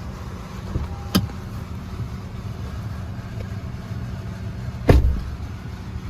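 Steady low rumble of a vehicle, with two sharp clicks: one about a second in and a louder one near five seconds.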